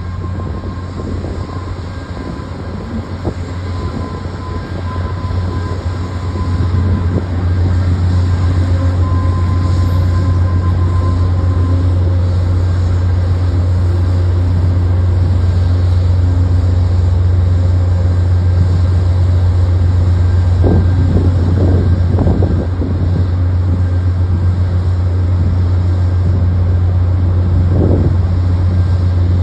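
Amtrak GE P42DC diesel locomotive running, a steady low engine drone with rumble, louder from about seven seconds in, with a few brief rattles near the end.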